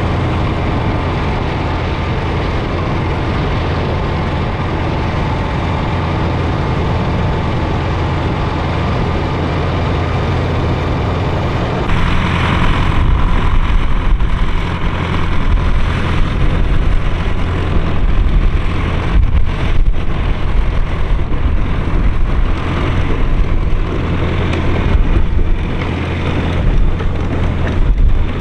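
A vehicle engine running steadily, with wind buffeting the microphone. About twelve seconds in the sound grows louder and rougher, with gusty rises and falls.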